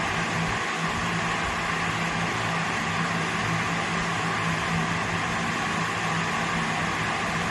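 A steady, unchanging hum with a constant hiss over it, with no distinct events.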